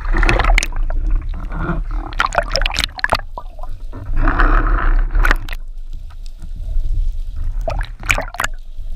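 Sea water splashing and sloshing around a camera at the surface as it dips in and out of the waves, with gurgling when it goes under. Several bursts of splashing come over a steady low rumble.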